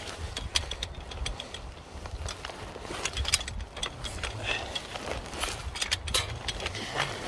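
A low, fluctuating rumble of wind buffeting the microphone, broken by frequent sharp metallic clicks and clinks of climbing hardware against the steel tower during the descent.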